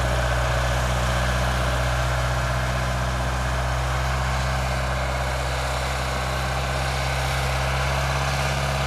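1990 410C backhoe's diesel engine running steadily as the machine is driven in second gear, a constant low hum with no change in speed.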